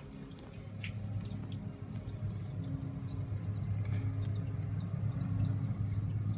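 Aquarium power filter running: water trickling and dripping back into the tank over a low steady hum, which grows louder about a second in.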